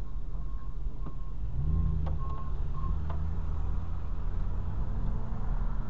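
Car engine and road noise heard from inside the cabin; the engine picks up about a second and a half in and rises a little near the end. A tow truck's reversing beeper sounds faintly as short beeps in the first half.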